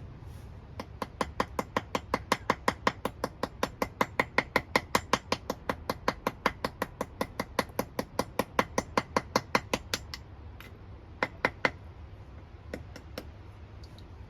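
A hand tool making a rapid, even run of sharp clicks, about five a second, for some nine seconds, then a few scattered clicks near the end.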